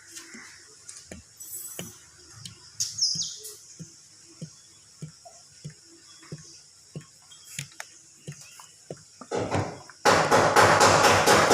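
Scattered light clinks and knocks of tools, with faint bird chirps. About ten seconds in, loud rapid hammering begins, roughly five blows a second.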